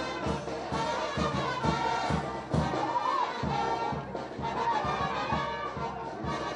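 Brass band music: trumpets and trombones playing a melody over a steady drum beat.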